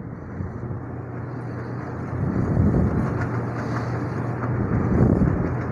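A steady low hum with a rumbling background noise that swells from about two seconds in, with faint scratching of a marker writing on a whiteboard.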